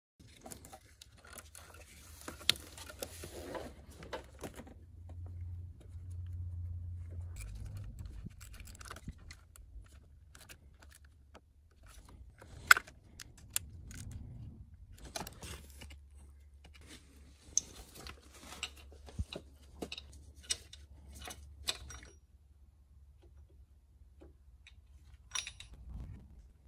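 Hand tools and metal parts clinking and scraping as they are handled, with scattered sharp clicks, the loudest about halfway through, over a low steady hum.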